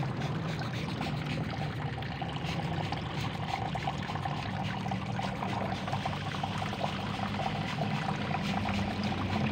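Hand sprayer spraying liquid over a potted plant's leaves and soil: a steady, wet, trickling hiss.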